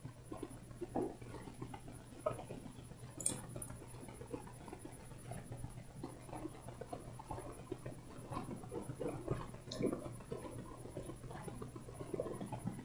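Faint scratching and rustling of fingers working a string while tying a small knot, with scattered small clicks, one sharper about three seconds in.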